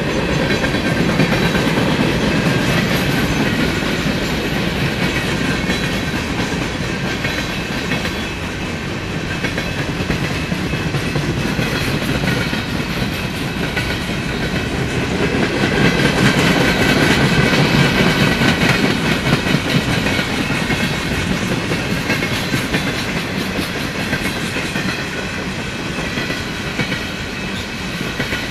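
Empty flatcars of a freight train rolling past close by, the wheels clattering steadily over the rails with a clickety-clack, swelling louder twice.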